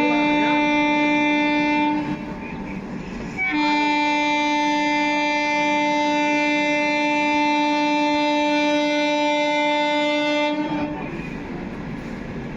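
Indian Railways locomotive horn sounding two steady blasts: the first stops about two seconds in, and the second, long blast of about seven seconds starts a moment later. After the horn stops, the train's running noise goes on.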